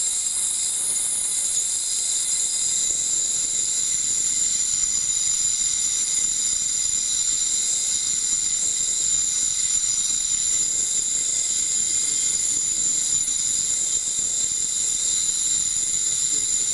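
Ultrasonic emitter with its waveguide in water running continuously, giving a steady high-pitched whine of several tones over a hiss.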